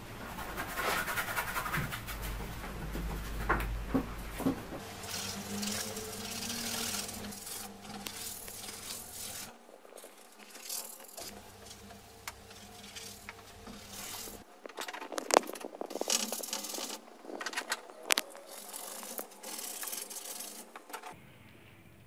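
Bristle paintbrush rubbing and scrubbing oil paint onto a canvas in repeated, uneven strokes, with a few sharp knocks about two-thirds of the way through.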